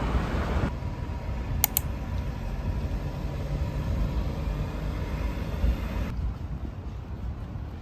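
Outdoor city street ambience: a steady low rumble of road traffic, with two sharp ticks about two seconds in. The background changes abruptly about a second in and again near the end.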